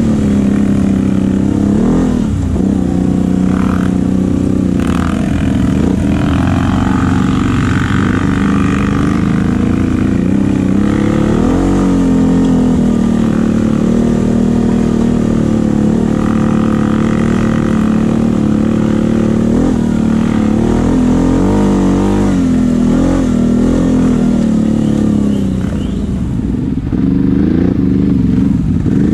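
CFMoto CForce 850 XC ATV's V-twin engine running under way, its pitch rising and falling as the throttle opens and eases. It goes quieter for a moment near the end, then picks up again.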